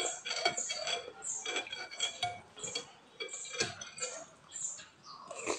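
Metal fork and spoon clinking and scraping against a glass bowl of noodle soup: a string of short, ringing clinks at an uneven pace.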